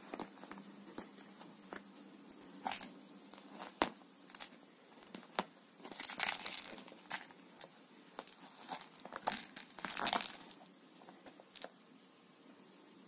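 Cat clawing and scuffling on a fabric cover while wrestling a fur toy mouse: irregular scratchy rustles and sharp clicks, busiest about six and ten seconds in.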